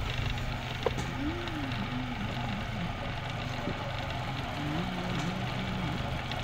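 Motor-driven potter's wheel spinning steadily, its drive giving off a low, even hum while clay is thrown on it.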